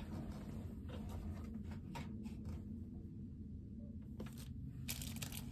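Quiet room tone with a steady low hum, broken by a few faint light taps and clicks of objects being handled.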